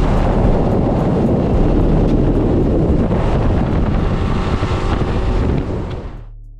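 Outboard-powered boat running at speed: a steady engine drone and water rush under heavy wind buffeting on the microphone, fading out near the end.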